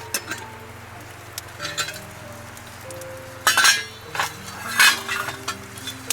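Metal cookware and utensils clinking and clattering in a few short bursts, the loudest about halfway through and again near five seconds.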